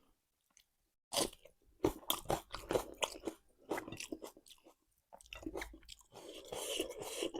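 A person chewing and biting crunchy food in irregular crunches and mouth clicks, starting about a second in, with a brief pause about two-thirds of the way through.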